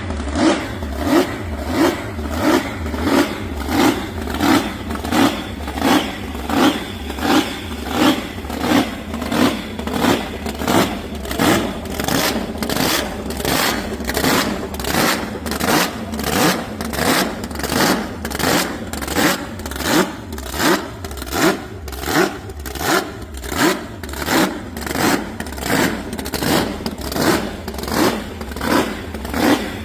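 Car engine running, with a regular surge in its sound about one and a half times a second. The owner calls it healthy.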